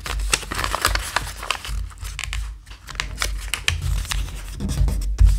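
A sheet of paper rustling and crinkling as it is folded into a paper airplane and its creases are pressed down by hand, with low thumps of hands on the table, the loudest about five seconds in.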